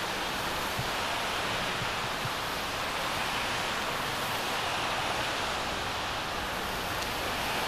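Steady, even hiss with no distinct sounds in it, cutting off abruptly at the end.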